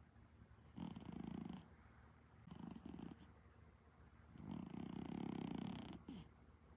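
Exotic Shorthair cat, a flat-faced breed, snoring in its sleep: three rasping snores with quiet breaths between them, the longest near the end, followed by a faint click.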